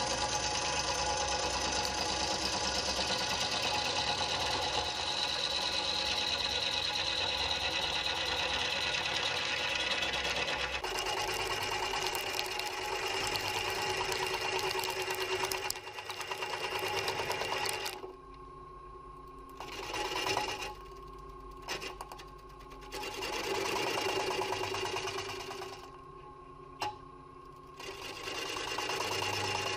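Bowl gouge cutting the inside of a wooden bowl spinning on a Powermatic lathe: a steady, rhythmic scraping hiss of the cut. In the second half the gouge lifts off three times, leaving only the lathe's running hum between short cuts.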